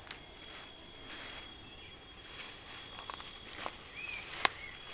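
Footsteps and rustling in grass and leaf litter over a steady, faint, high insect whine, with two short bird chirps near the end and a sharp click between them.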